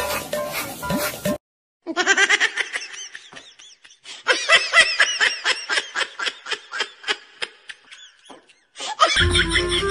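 Laughter sound effect dropped into the edit: a long run of quick, high-pitched giggles repeating several times a second for about seven seconds. Before it the background music cuts off abruptly, and the music comes back near the end.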